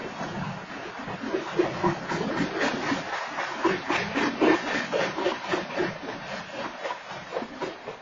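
Freight train cars rolling past on the rails: a continuous noisy rush of wheels on track with many irregular clanks and rattles, loudest about halfway through.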